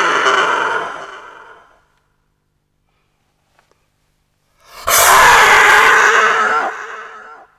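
Goose hissing: a long hiss fading out in the first two seconds, a pause, then another loud hiss starting about five seconds in and fading away near the end.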